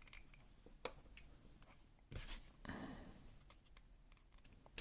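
Faint clicks and scrapes of small metal lock parts being handled while a picked wafer lock cylinder is taken apart, with a sharp click about a second in and another at the end.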